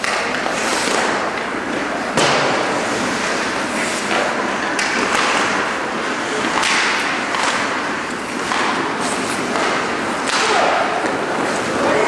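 Ice hockey play: skate blades scraping and hissing on the ice, with sharp knocks of sticks and puck, the loudest about two seconds in.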